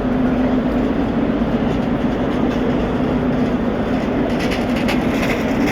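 Train at a station platform: a steady hum over a constant rumble, with a few sharp clicks about four to five seconds in.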